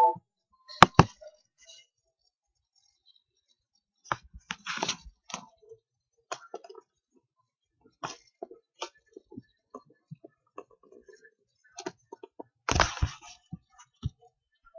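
Scattered faint clicks and taps from a computer mouse and desk being handled, with two sharp clicks about a second in and a short, louder scuffle near the end.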